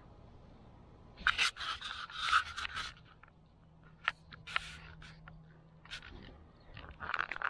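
Handling noise close to the microphone: irregular scraping and rustling with several sharp clicks, starting about a second in, easing off midway and picking up again near the end.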